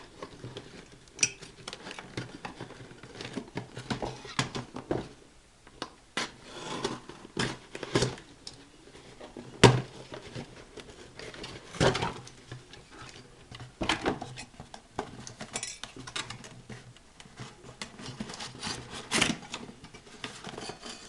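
Irregular metallic clinks, knocks and rattles as a metal fireplace fan is handled and turned over, with a few louder knocks about ten and twelve seconds in.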